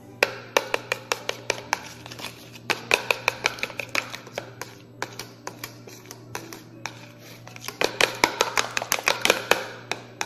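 Steel spoon beating raw eggs in a plastic bowl: quick clicking strokes against the bowl, about five or six a second, in four runs with short pauses between them.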